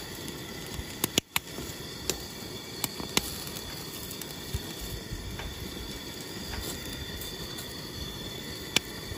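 Propane camp stove burner hissing steadily under an ear of buttered corn on the cob grilling on the grate, with a few sharp crackles and pops as the kernels char.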